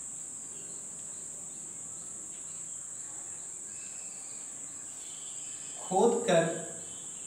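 Chalk writing on a blackboard, faint taps and scratches, under a steady high-pitched whine. A short spoken word breaks in about six seconds in.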